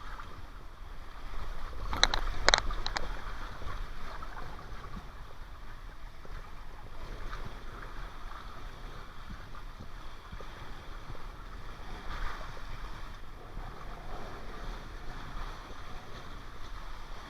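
Rushing water of a waterpark tube slide, with a few sharp knocks about two seconds in.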